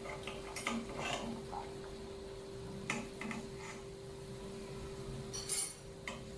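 Scattered clinks and knocks of kitchen utensils and dishes, over a steady low hum.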